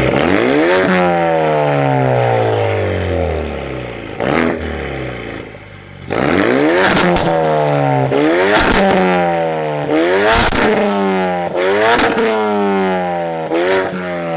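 Ford Focus RS's turbocharged 2.3-litre four-cylinder through an Agency Power aftermarket exhaust, its note sweeping down in pitch several times, each sweep broken by sharp pops, with a brief lull about five seconds in.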